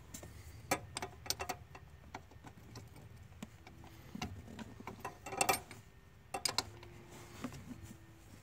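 Wrench on a brake line fitting at the master cylinder, giving short clusters of sharp metal clicks and taps as the fitting is worked loose: about a second in, around five and a half seconds in, and again around six and a half seconds in.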